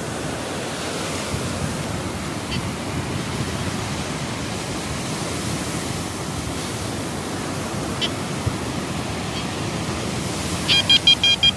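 Steady rush of surf. Near the end a TX-850 metal detector gives a quick run of several short high-pitched beeps as its coil is held over a freshly dug hole, signalling a metal target.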